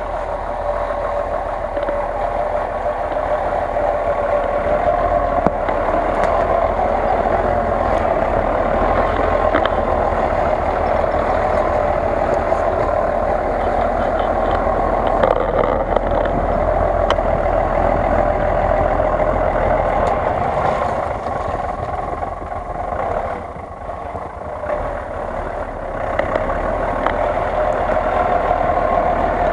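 Lifted Jeep Cherokee off-roader on huge mud tyres driving through snow, its engine running steadily under load with a steady whine over it. The sound eases briefly about two-thirds of the way through, then picks up again.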